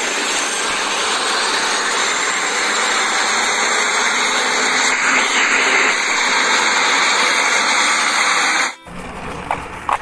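Steady road noise of heavy trucks and traffic driving on a city street, hiss-like with little bass, cutting off suddenly about nine seconds in.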